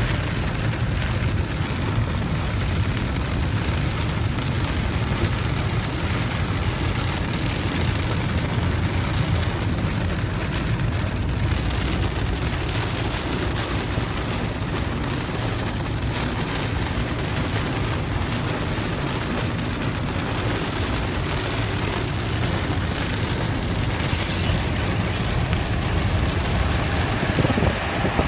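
Heavy rain hitting the roof and windows of a moving car, heard inside the cabin over a steady low rumble of tyres on a wet road.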